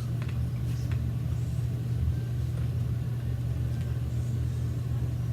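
A steady low hum, with a few faint soft clicks of someone chewing food.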